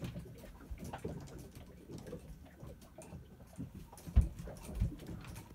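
Footsteps on a wooden boat's cabin floor and teak deck, with small creaks and clicks. Two heavier thumps come near the end, about half a second apart.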